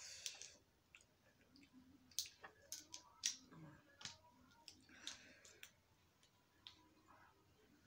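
Snow crab shell being cracked and picked apart by hand: an irregular run of sharp clicks and cracks, the loudest about three seconds in.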